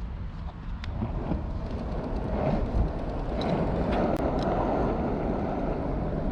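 Steady rolling rumble of cruiser skateboard wheels on pavement, with wind on the microphone; the rumble grows louder in the second half, with a few small clicks.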